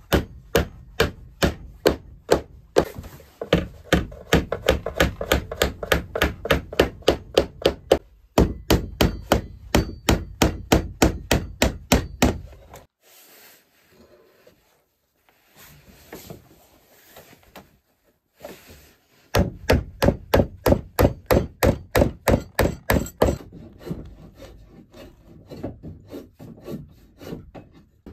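Hammer driving nails into wooden boards with quick, even blows, about three a second, in two long runs with a pause between. Softer scraping of wood near the end.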